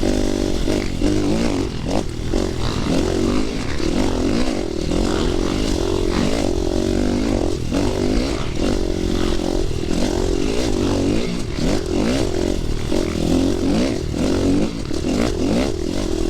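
Dirt bike engine running on a trail ride, its pitch rising and falling again and again as the throttle opens and closes, with frequent short clatters.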